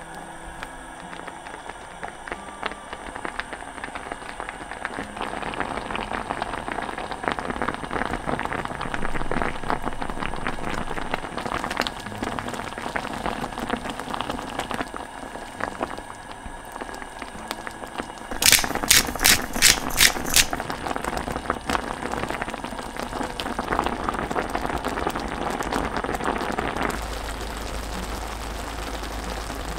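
Thick cream sauce with rice cakes, bacon and onion bubbling in a pan, a steady crackle of small pops. About two-thirds of the way through there is a quick run of about six sharp clicks.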